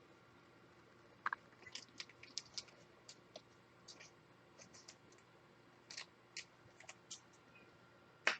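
Faint clicks and scratchy ticks of football trading cards being handled and slid against one another, with a sharper click near the end.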